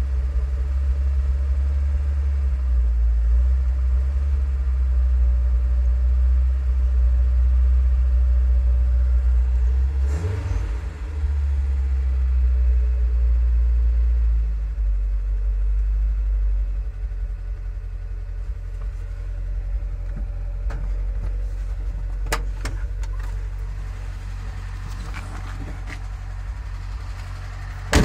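The 2.0 OHC (Pinto) four-cylinder petrol engine of a 1981 Ford Transit MK2 running, shortly after its first start in three months, heard as a steady low rumble from inside the cab. There is a brief change about ten seconds in, and it grows quieter about halfway through. Several sharp clicks follow near the end.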